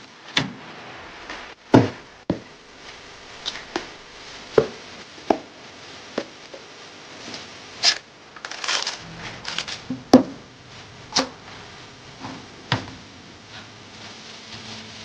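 Sharp clicks and taps of PC hardware being handled and fitted together during a build: about a dozen separate knocks spread unevenly, with a short run of rustling clicks just past the middle.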